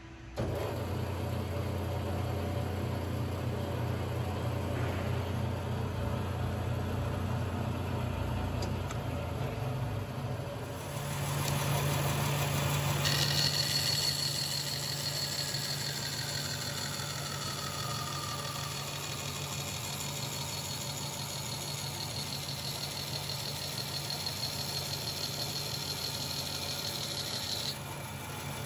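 Grob 4V-18 vertical bandsaw switched on just after the start and running with a steady hum. About ten seconds in, its sound dips and then comes back at a higher level with a new note. A high whine joins about thirteen seconds in and cuts off near the end.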